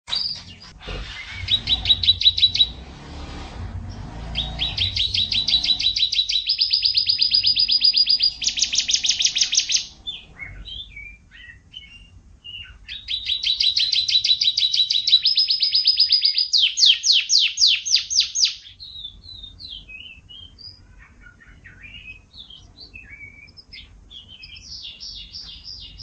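Domestic canary singing: runs of rapidly repeated high notes, each run held for a second or two before switching to another, in one short and two long loud phrases. Softer scattered chirps fill the gaps between and after the phrases.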